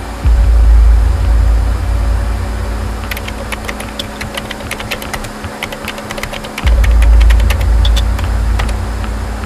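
Hip-hop intro sound design: two deep sub-bass booms about six seconds apart, each hitting suddenly and then slowly fading, over a steady low hum. Irregular crackling clicks come in between them.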